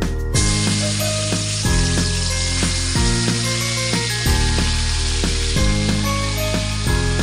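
Marinated beef hitting hot oil and garlic in a wok, bursting into a loud, steady sizzle that starts abruptly a moment in. Background music with a regular beat plays throughout.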